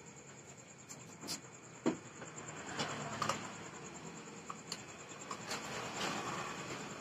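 Scattered metallic clicks and clinks of hand tools being handled on a workbench, as pliers are worked over a small steel part; one sharper knock comes about two seconds in.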